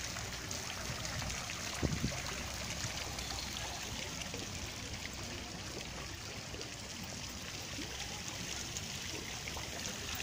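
Water from a tiered park fountain falling and splashing into its basin, a steady rush with trickling. There is one short thump about two seconds in.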